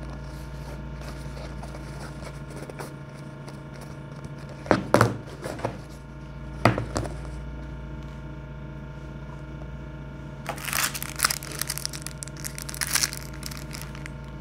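Sunglasses cases knocking on a countertop as they are set down, a few sharp knocks around five and seven seconds in. Then a plastic sleeve holding a lens cloth crinkles as it is handled, over a steady low hum.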